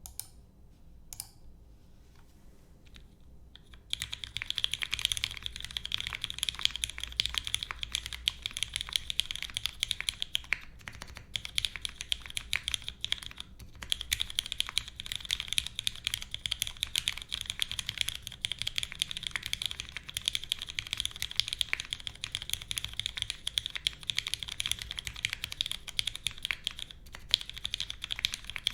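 Continuous typing on a Singa Kohaku custom mechanical keyboard with an aluminium leaf-spring plate, lubed and filmed Cherry MX Black linear switches and GMK keycaps. After a couple of single key presses, a steady stream of clacky keystrokes starts about four seconds in and runs on, with a brief pause near the end.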